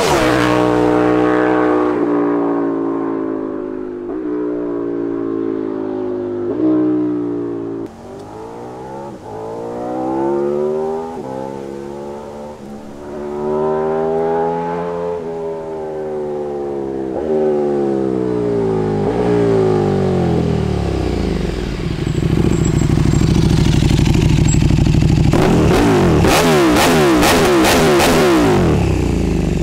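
KTM 1290 Super Duke R V-twin engine breathing through an Austin Racing GP1R titanium end can, on the move. The engine note steps through gear changes, rises under acceleration and falls away again, then turns louder and rougher near the end.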